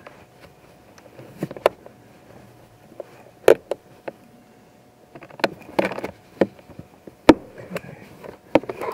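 A ratchet with a socket extension turning a small 7/32-inch bolt, giving sharp, irregular clicks and knocks about every half second to second.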